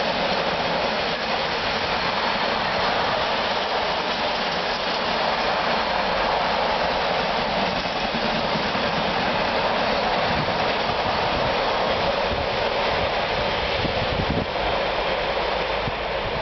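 A container freight train's wagons rolling past at speed, a steady rushing noise of wheels on rails. Near the end, wind gusts buffet the microphone.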